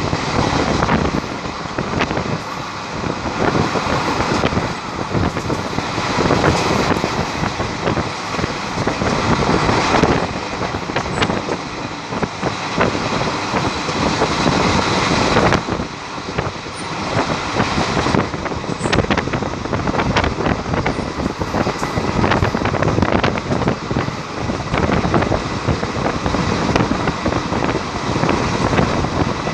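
Passenger train running at speed, heard at the side of a coach: a steady rumble of wheels on the rails with scattered clicks and rattles, mixed with wind on the microphone.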